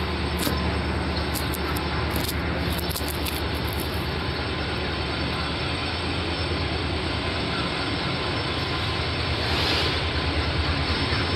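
Train running: a steady low rumble with a few faint high clicks in the first few seconds and a brief hiss just before the end.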